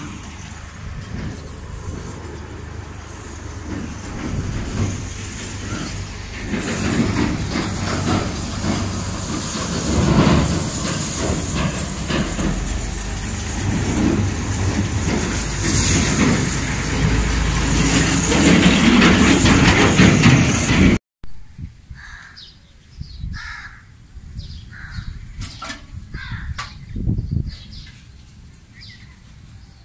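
Loud, rough rumbling and rushing noise that builds over about twenty seconds and cuts off suddenly. After it, quieter outdoor air with short bird calls, crows among them.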